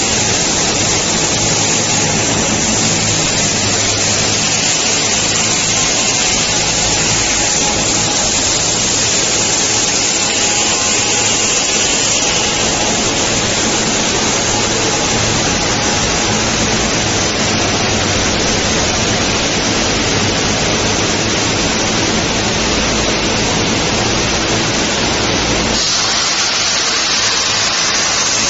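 Steady, loud rushing noise of a ceiling-tile roller coating line running, its conveyor rollers, motors and fans blending into one even roar with a faint low hum underneath. The sound shifts slightly near the end.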